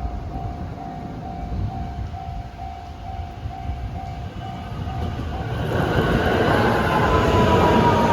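Japanese level-crossing alarm ringing a repeated electronic ding about twice a second. About five and a half seconds in, a JR West electric train arrives and passes, growing loud, with a whine that falls in pitch.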